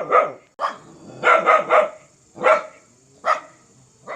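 Dog barking fiercely in short, sharp barks, about eight in all, with a quick run of three near the middle.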